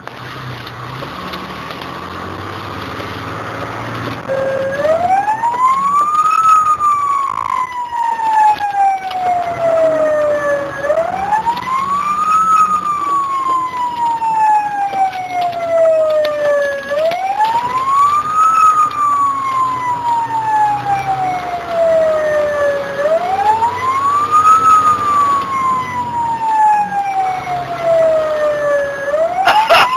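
Fire engine siren in a slow wail, heard from inside the truck's cab over its running engine. It comes on about four seconds in, each cycle rising quickly and then falling slowly, repeating about every six seconds.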